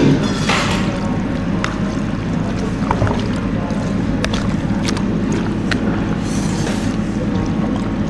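Metal spoon stirring wet puha and mussels in a plastic bowl: scattered clicks and brief scrapes of the spoon against the bowl and soft wet squishing. Under it runs a steady low hum.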